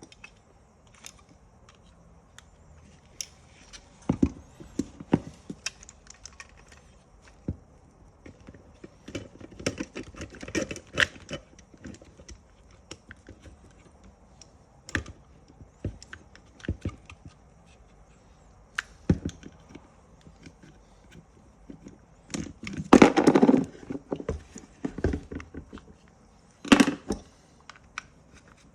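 Seatbelt retractor parts being handled and fitted together: scattered sharp clicks and knocks, with a louder cluster of rattling knocks near the end.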